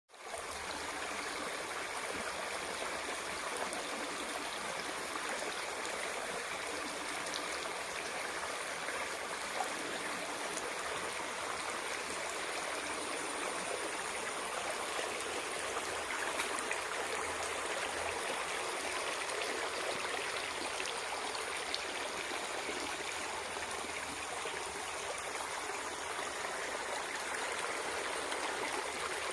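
Small stream of spring water flowing steadily, a continuous even rush and babble of water.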